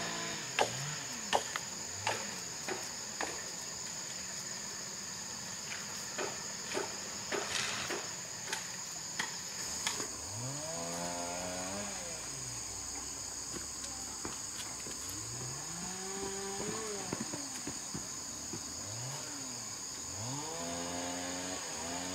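A steady high-pitched chorus of insects runs throughout. Sharp knocks come every second or so during the first ten seconds. In the second half, three spells of low pitched sounds rise and fall in pitch.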